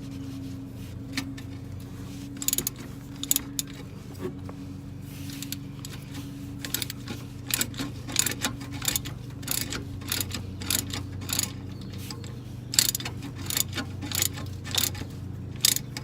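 Metal hand tools clinking and clicking on car parts as bolts are worked, in irregular taps that come quicker in the second half, over a steady low hum.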